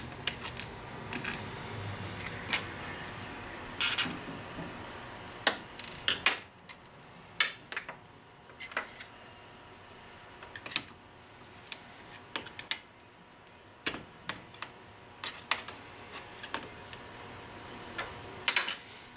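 Irregular small clicks and taps of a Torx screwdriver and tiny screws as the hard-drive bracket screws are taken out of a MacBook Pro and set down.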